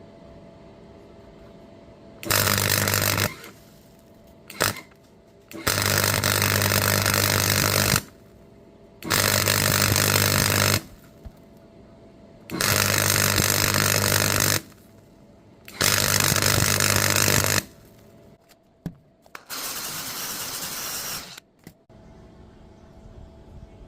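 Electric arc welding on cracks in a ride-on mower's steel deck: five separate runs of arc noise, each about one to two seconds long with a steady hum under it, plus one very short blip. Near the end comes a quieter, hum-free stretch of noise about two seconds long.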